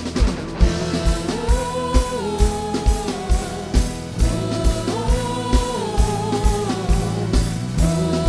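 Gospel worship band music: a steady kick drum about two beats a second under bass and guitar, with a held, stepping melody line coming in about a second in.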